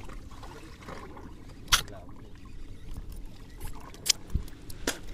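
Low rumble of water and wind around a small fishing boat at sea, with three sharp clicks or knocks (about two seconds in, at four seconds, and near the end) and a dull thump just before the last click.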